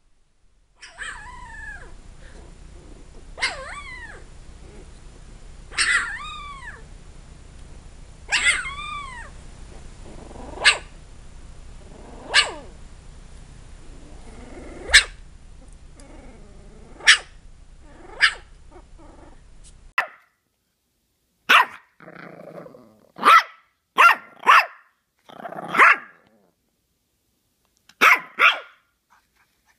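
Newborn puppies giving high, squeaky little cries that rise and fall, one every two to three seconds, over a low steady hum. About twenty seconds in this gives way to a small shaggy puppy barking: short sharp barks, several in quick pairs.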